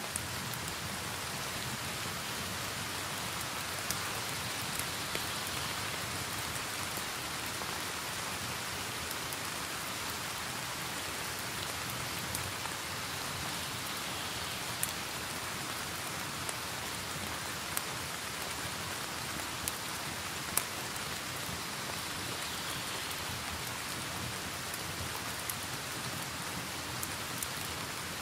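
Steady rain mixed with a wood fire in a fireplace, with an occasional sharp crackle from the fire every couple of seconds.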